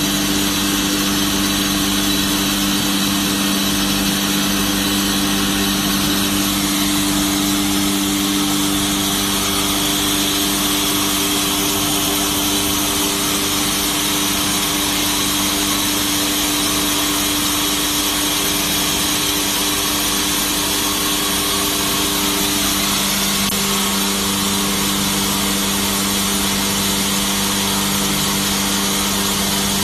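Vacuum-suction gantry horizontal band saw running steadily as its blade cuts through a wide panel: a constant machine hum with a low tone under an even hiss of cutting.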